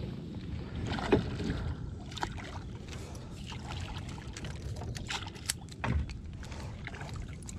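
Water splashing and sloshing at the side of a boat as a hooked catfish struggles at the surface, with a few light knocks and clicks from the tackle and hull.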